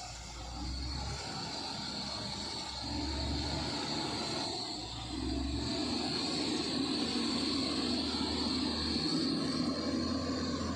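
Motor grader's diesel engine running steadily under load, getting louder about three and five seconds in, with a steady high whine alongside.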